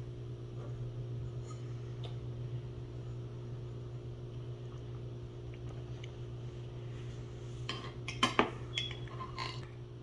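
Metal butter knife clinking and scraping while spreading blueberry jam. There is a cluster of sharp clinks about eight seconds in, over a steady low hum.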